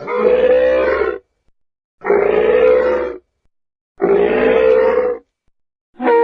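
Dinosaur roar sound effect, a growling roar of about a second, repeated identically three times about two seconds apart, with a fourth starting just before the end.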